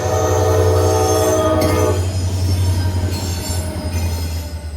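CSX diesel locomotive's horn sounding one chord blast lasting about two seconds, over the steady low rumble of the locomotive's diesel engine as it gets moving.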